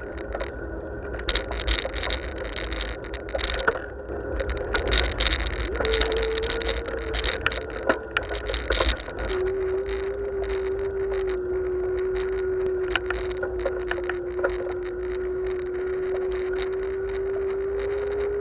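Riding noise picked up by a camera on a moving bicycle: a low wind rumble on the microphone, frequent clicks and rattles from bumps in the path, and a steady whine that steps up in pitch about six seconds in and settles a little lower about nine seconds in.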